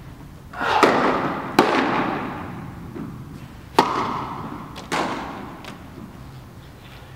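Tennis balls being hit, four sharp strikes of racket and ball over a few seconds, each ringing out with a long echo in a large indoor tennis hall.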